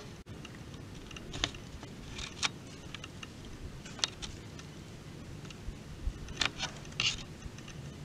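Sporadic short clicks and crisp rustles over a quiet woodland background, with a sharp click right at the start and a cluster of louder ones about six and a half to seven seconds in.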